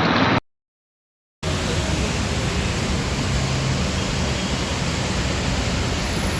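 A steady rushing noise, broken by about a second of dead silence just after the start (an edit), then running on evenly.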